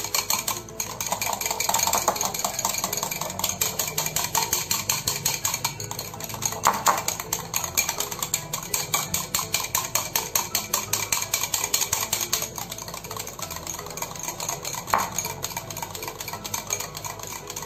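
Wire whisk beating thick drained yogurt in a glass bowl: a fast, even run of strokes as the wire tines knock and scrape against the glass. This is the yogurt being beaten smooth before the cooled milk goes in, a step in setting sweet yogurt.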